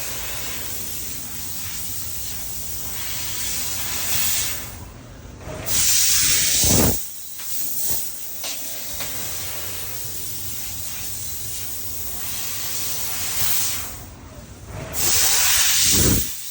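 CNC fiber laser cutting machine running with a steady hiss of assist gas. Twice, about nine seconds apart, the hiss swells into a louder rush that ends in a quickly falling tone.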